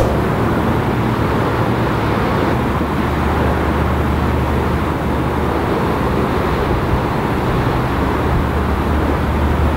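Diesel engines of a French Navy Flamant-class patrol vessel running steadily under way: a low, even drone over the broad rush of its bow wave and wake.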